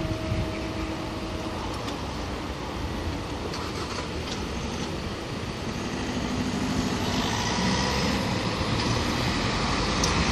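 Road traffic at a railway level crossing: a brief steady tone in the first second and a half, then a car approaching, growing louder toward the end.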